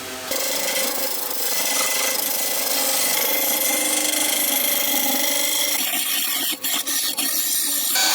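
A woodturning lathe with a tool held against the spinning wooden workpiece, giving a steady hiss of wood being cut away. The contact breaks off briefly a few times near the end.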